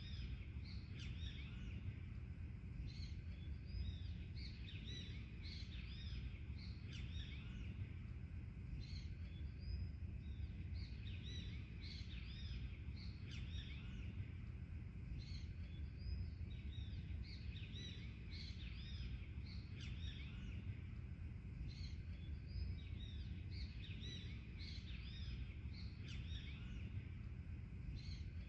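Many birds chirping and calling in a dense chorus of short, repeated calls, over a steady low background rumble.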